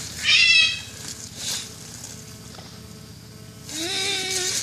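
Mating calls of a mounted male tortoise: a short, high, squeaky wavering cry just after the start, then a lower, longer cry that rises slightly and holds near the end.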